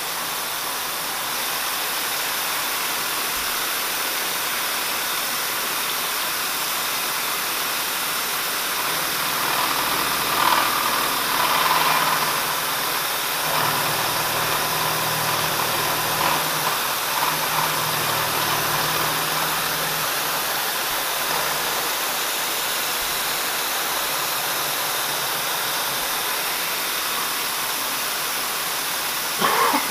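Mist coolant spraying with a steady hiss over a running DoAll milling machine, its cutter taking a cut in a steel drill-rod lock part, with a rougher cutting sound coming in for about ten seconds in the middle.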